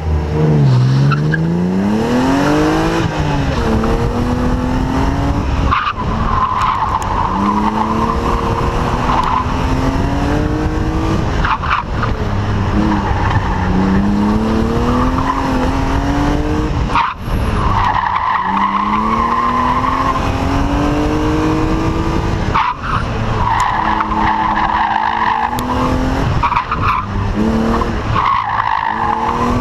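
1998 BMW E36 M3's inline-six engine working hard on an autocross course: its pitch climbs under throttle and drops sharply at each lift or shift every few seconds. The tires squeal in stretches through the corners.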